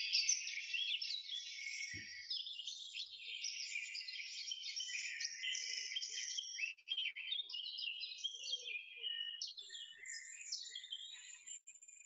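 Recorded woodland bird song played back over a video call: many birds singing at once in a dense, unbroken mix of quick chirps, trills and warbles. A faint low knock comes about two seconds in.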